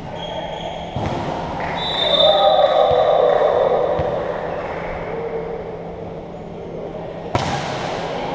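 Volleyball match sounds: a few sharp ball hits, then a referee's whistle held for about a second and a half, about two seconds in, over players' shouting. A loud ball strike comes near the end.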